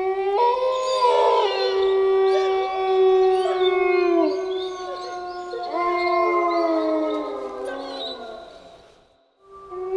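A pack of wolves howling in chorus: several long, overlapping howls at different pitches, some sliding downward, with short higher yips over them. The chorus fades out near the end, then a new howl starts.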